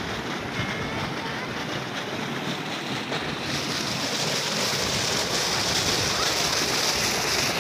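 Water rushing and splashing down a steep irrigation channel: a steady hiss that grows louder and brighter about three and a half seconds in.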